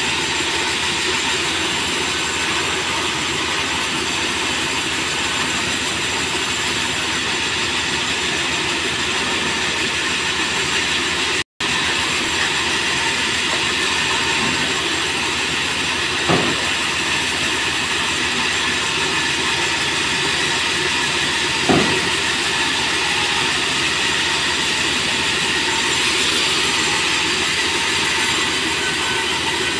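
Sawmill saw machine and roller conveyor running steadily while merbau planks are fed through, a continuous loud mechanical din with a high ringing tone. Two sharp knocks stand out, about halfway through and again about three quarters of the way in.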